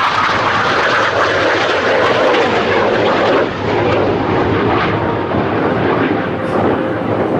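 A CF-18 Hornet fighter jet's twin General Electric F404 turbofan engines, a loud steady rush of jet noise that sinks slightly in pitch as the jet moves away.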